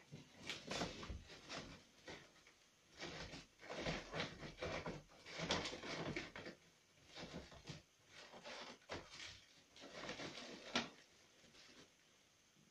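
Mylar foil balloons crinkling and rustling as they are handled, in irregular bursts that stop about eleven seconds in.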